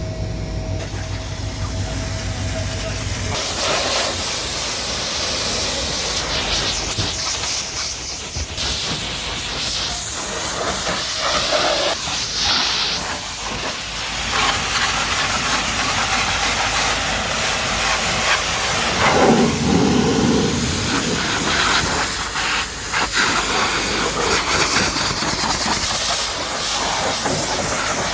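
High-pressure washer jet spraying water onto a car: a loud, steady hiss that swells and shifts as the spray moves, starting about three seconds in after a low hum.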